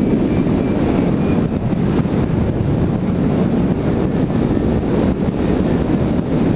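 Wind rushing over a hang glider pilot's GoPro microphone in flight: a steady, heavy buffeting rumble.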